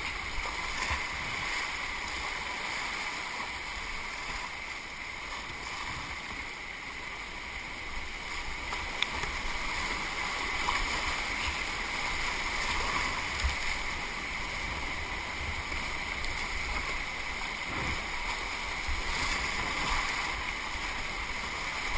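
Steady rush of whitewater as a kayak runs through the rapids and wave trains of a flood-high river, with a few light knocks.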